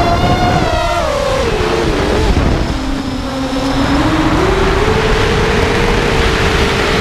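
5-inch FPV racing quadcopter's F40 2300kv brushless motors on 5x4.5 bullnose props whining, heard from the onboard camera with prop wash and wind noise. The pitch starts high, slides down about a second in as the throttle eases, then climbs again around four and a half seconds in and holds steady.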